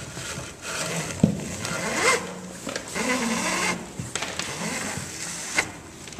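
Braided lacing rope rubbing and scraping as it is pulled through the trampoline's lacing holes and over the buttons on a Hobie Miracle 20 catamaran's rear crossbar, with a couple of sharp knocks as the line is handled.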